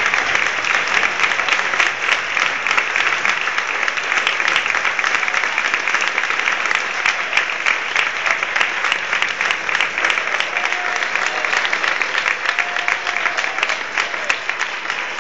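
Stadium crowd applauding: dense, steady clapping from many spectators in the stands.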